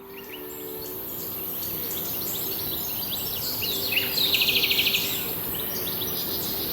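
Wild birds singing: scattered high chirps, with one bird's fast, even trill about halfway through, over a steady high hiss.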